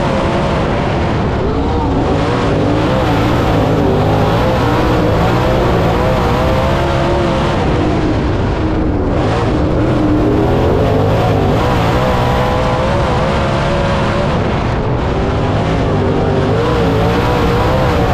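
Dirt late model race car engine running hard, its pitch rising and falling again and again, over a constant noise of the car at speed.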